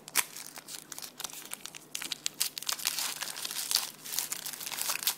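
Plastic trading-card pack wrapper crinkling and crackling as it is torn open and handled, in a dense run of sharp crackles.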